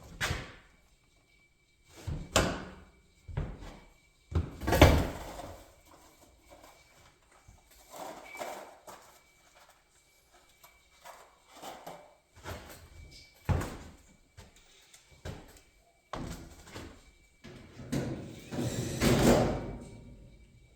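Irregular metal knocks and bangs as parts of a waste oil furnace are handled and fitted. The loudest bang comes about five seconds in, and there is a longer clatter near the end.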